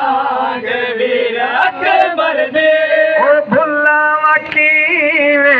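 A man's voice chanting a noha, a Shia mourning lament, in long held notes that waver in pitch, with short breaks between phrases.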